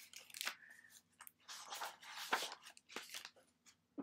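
Hardcover picture book being handled and opened: the cover and paper pages rustle and crinkle in several short, irregular rustles.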